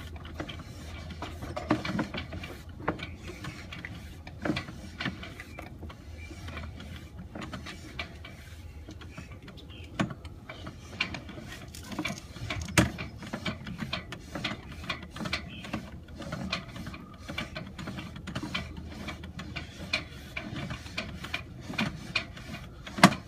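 Sewer inspection camera's push-cable reel being wound in as the camera is pulled back up the pipe: irregular mechanical clicks and knocks over a low steady hum, with one sharp click near the end.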